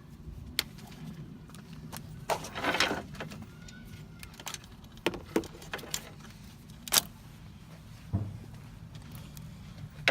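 Tools and small metal parts being handled while fitting a car's cooling fan in the engine bay: scattered clicks and knocks, with a short rattle about two and a half seconds in and a dull thud about eight seconds in, over a steady low hum.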